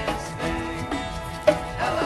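Small acoustic band playing instrumental country music: strummed acoustic guitars, upright bass, a box drum and a harmonica-like lead. One sharp percussion hit about one and a half seconds in is the loudest moment.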